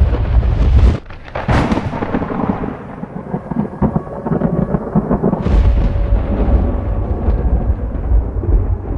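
Thunder: a deep rumble that cuts off about a second in, a sudden crack half a second later, and the low rumble building again a little over five seconds in.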